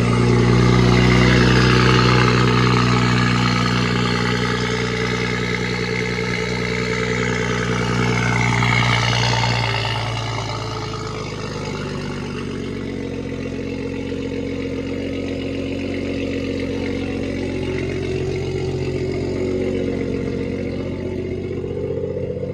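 BMW M3 engine running through its sport exhaust at a steady idle. It is loudest for the first few seconds, swells once more near nine seconds, then settles to a lower, quieter idle about ten seconds in.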